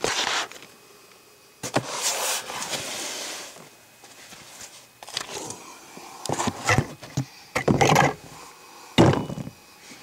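Handling noise from a camera being picked up and repositioned: irregular knocks, bumps and scrapes, with a stretch of rustling about two seconds in and a cluster of knocks later, the loudest about nine seconds in.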